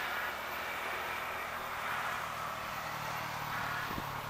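Diesel freight locomotive approaching from a distance, its engine a steady low drone that grows a little stronger near the end.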